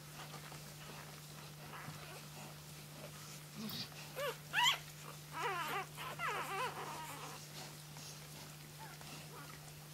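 Three-day-old flat-coated retriever puppy crying in short, high, wavering squeals and whimpers, starting a few seconds in. The loudest squeal comes near the middle, followed by a cluster of overlapping cries. A steady low hum runs underneath.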